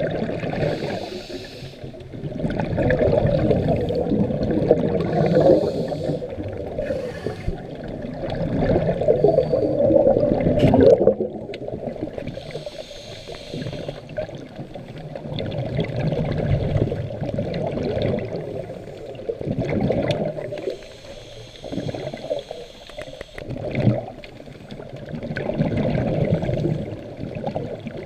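Muffled water sloshing and bubbling, swelling and fading every few seconds.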